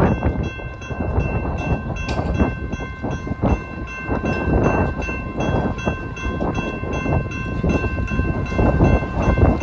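Wind buffeting the phone's microphone in uneven gusts, with a set of steady high tones holding underneath.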